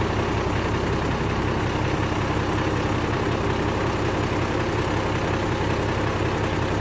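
Mercedes-Benz Unimog 406's six-cylinder diesel running steadily at low revs while the truck pulls in super crawl gear, creeping a front tyre up onto a concrete block.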